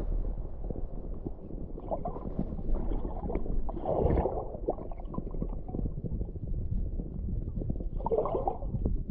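Muffled water sound heard underwater: a steady low rumble and gurgling, with a louder splashing rush of bubbles about four seconds in and again near the end as a hooked huchen thrashes at the surface.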